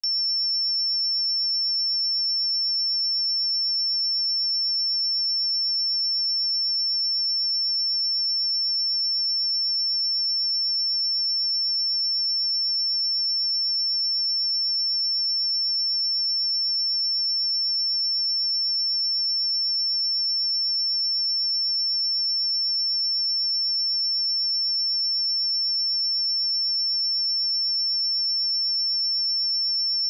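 A pure 5404 Hz sine-wave test tone: one steady, unchanging high-pitched tone.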